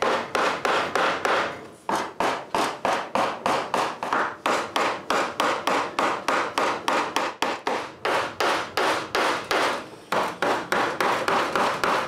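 Wood chisel being struck in rapid, even blows, about four or five a second, chopping out a mortise in a board. The strikes break off briefly about two seconds in and again near ten seconds.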